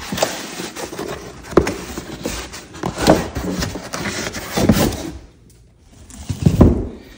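Foam packing blocks and cardboard box being handled around a boxed battery: rubbing and scraping with several louder knocks, a lull about five seconds in, then one more knock.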